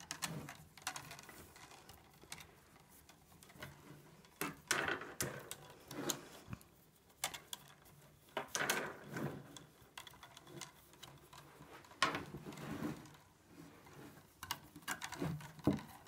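Green willow rods with the bark on being woven by hand around upright willow stakes, rubbing and tapping against each other: irregular rustling and clicking.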